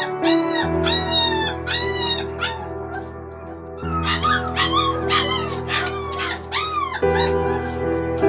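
Young puppies crying in strings of short, high-pitched whines, with a brief lull about three seconds in, over background music with held chords.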